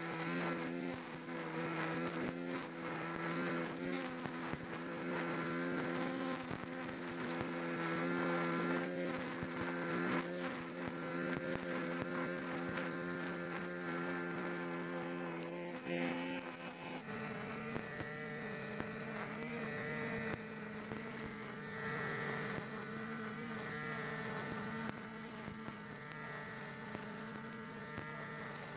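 Backpack brush cutter's small petrol engine running steadily at cutting speed, its 2.2 mm nylon trimmer line whipping through grass with a hiss. The engine note shifts once, partway through.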